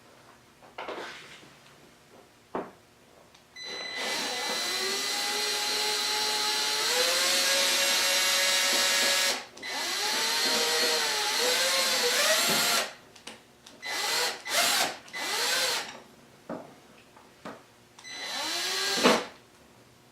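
Drill with a 1/8 inch Allen bit backing out motorcycle windshield screws, run slowly: two long runs of several seconds with the motor pitch shifting under load, then several short bursts.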